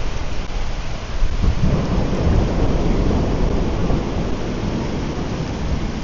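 Heavy storm rain pouring steadily, with a deep rumble of thunder coming in about a second and a half in and rolling on.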